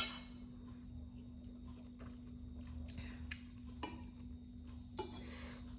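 Faint eating sounds at a meal of instant ramen: chewing, and a few light clicks of a metal fork and wooden spoon against the pot as the noodles are gathered. A steady low hum runs underneath.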